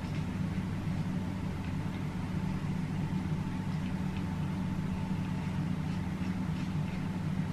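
Steady low hum of a running machine in the room, unchanging throughout, with a few faint light ticks.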